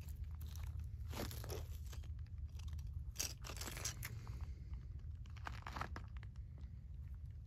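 Fingers picking up and pulling apart a brittle, weathered piece of debris: a few short bursts of crinkling, tearing and crunching as the dry material crumbles.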